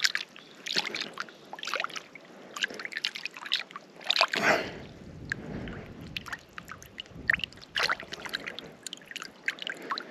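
Shallow water sloshing and splashing in irregular small bursts, with a longer, louder rush about four and a half seconds in.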